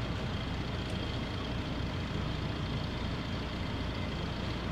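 The catamaran's engines running at a steady low speed while it manoeuvres, a low hum heard from inside the cabin.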